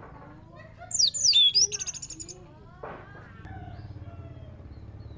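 Orange-headed thrush singing a short, loud phrase about a second in: sharp high swooping whistles, then a quick run of clipped notes, followed by fainter, softer notes.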